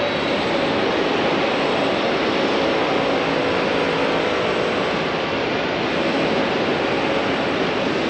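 Steady roar of airport terminal curbside ambience: light road traffic blended with the terminal's general din and a faint steady hum, with no single sound standing out.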